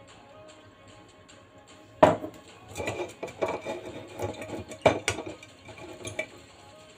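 Metal bundt pan knocking and clattering as it is picked up, turned in the hand and brushed with oil inside. The first sharp knock comes about two seconds in, with scattered clicks and knocks after it and a louder knock near five seconds.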